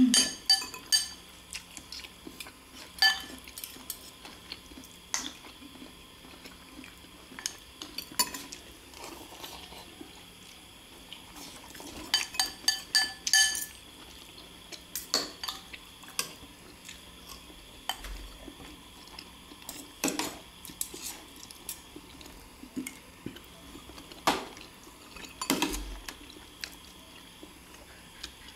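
Metal spoons and forks clinking and scraping against ceramic bowls while eating, in scattered bunches of sharp, briefly ringing clinks.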